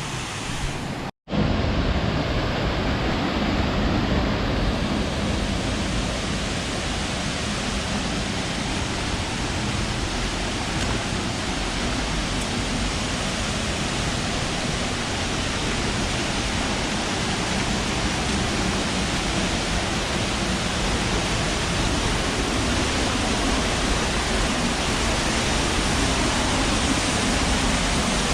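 Waterfall rushing: a loud, steady, even noise of falling water. It breaks off for an instant about a second in, then carries on unchanged.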